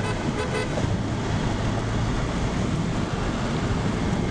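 Car driving on a snow-covered road: a steady low engine hum under even tyre and road noise.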